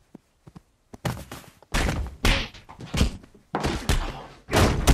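Fistfight sound effects: a rapid run of heavy thuds, slams and scuffling as bodies crash against a wall. It starts suddenly about a second in, after a near-quiet moment with a few small ticks.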